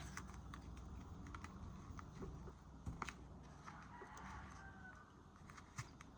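Masking tape being pulled from the roll and pressed onto a pistol slide: faint, scattered clicks and crackles.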